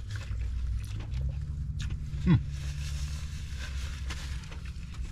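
Eating inside a parked car with the engine idling: a low steady rumble fills the cabin while a sandwich is chewed and its paper wrapper rustles. About two seconds in there is a short falling "mm" of appreciation.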